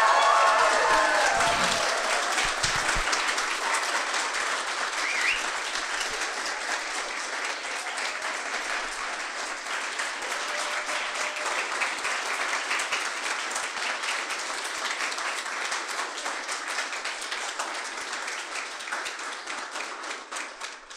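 Audience applauding, loudest at the start and slowly thinning out until it stops near the end. A few voices call out in the first couple of seconds.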